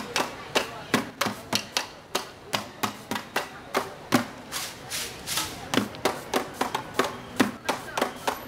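Improvised percussion on household items, plastic basins and plates struck in a steady rhythm of sharp hits, about three a second.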